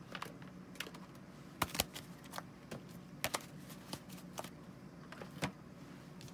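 Scattered light clicks and taps, irregular and about one or two a second, as oracle cards are handled and laid down.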